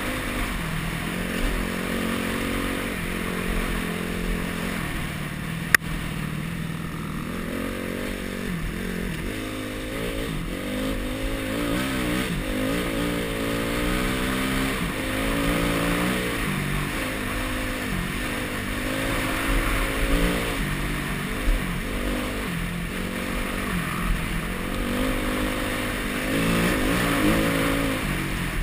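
Enduro dirt bike engine under way on a trail, the revs climbing and dropping again and again as the throttle opens and closes and gears change. A sharp knock about six seconds in.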